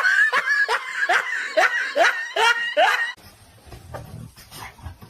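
A dog yipping in a quick series of short, high yelps, about seven in the first three seconds, then quieter.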